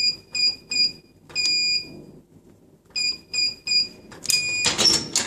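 Electronic cabinet lock keypad beeping as a code is keyed in to set a new user code, one short beep per key press. It runs as three quick beeps, one longer beep, three more quick beeps, then a longer beep with a louder burst of noise near the end.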